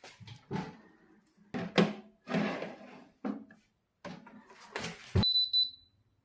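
Kitchen clatter: a baking tray and appliance door knocking and scraping in irregular bangs, then a kitchen appliance's control panel beeping in short high tones about five seconds in as it is set.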